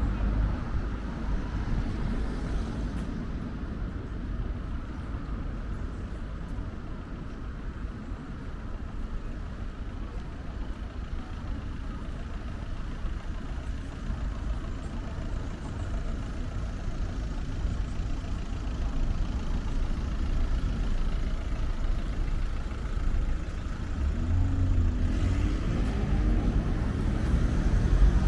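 City street traffic: a steady rumble of cars passing on the road. Near the end an engine is heard pulling away, its pitch rising.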